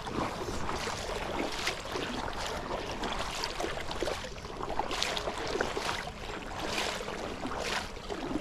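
Wading through a creek: water sloshing and splashing around the legs in irregular bursts about once a second, over the steady rush of the flowing creek.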